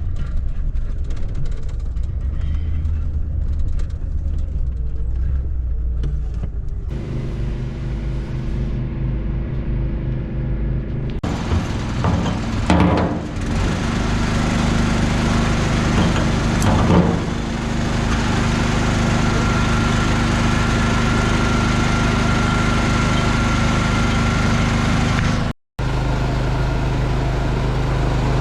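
Farm machinery engines running steadily, in several shots cut together, with abrupt changes in the engine sound about 7, 11 and 26 seconds in.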